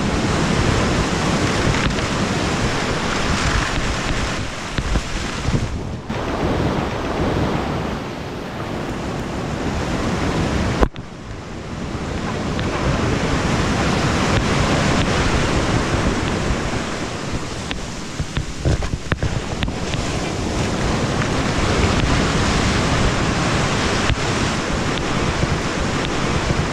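Breaking surf washing in around the waders' legs, swelling and ebbing as the waves roll in, with wind buffeting the microphone. A single sharp knock about eleven seconds in.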